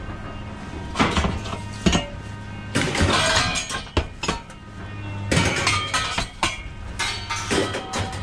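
Loose scrap metal clanging and clattering as pieces are thrown down, an irregular run of sharp metallic hits with ringing.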